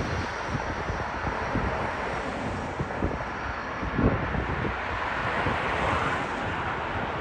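Airbus A350's Rolls-Royce Trent XWB jet engines running on landing approach as the airliner passes low overhead, a steady roar with wind gusting on the microphone.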